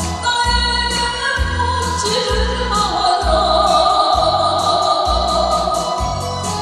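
A woman singing a Korean trot song live into a handheld microphone over a backing track with a steady bass beat about twice a second. She holds a long note through the second half.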